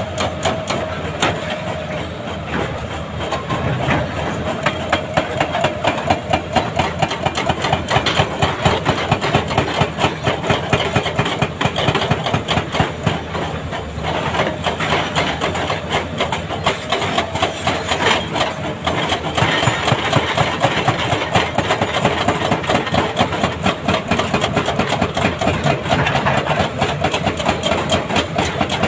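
Hydraulic rock breakers on large crawler excavators hammering hard rock in rapid repeated blows, over the steady running of the excavators' diesel engines.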